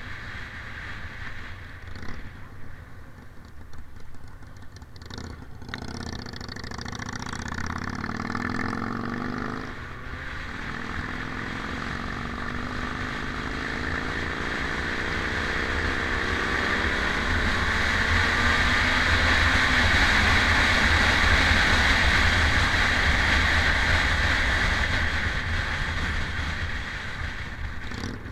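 Motorcycle engine running under way, its note rising about six seconds in, dropping briefly around ten seconds as if at a gear change, then climbing again. Wind and road noise swell as speed builds, loudest past the middle.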